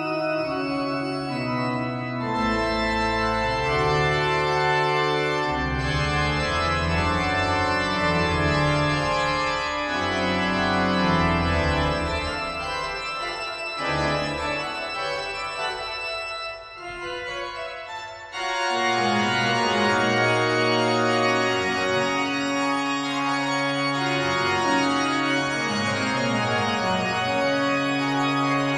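Rieger pipe organ playing loud, full sustained chords over a deep pedal bass. About two-thirds of the way through the sound thins and drops briefly, then the full chords come back in at once.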